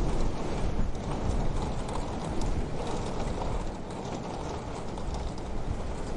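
Wood fire crackling in a wood-burning stove: a dense run of irregular snaps and pops over a steady low rumble of burning.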